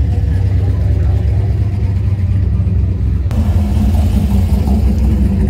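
Low, steady rumble of V8 car engines running at low speed. After a cut a little past three seconds, the engine sound steadies into a drone with a clear pitched tone.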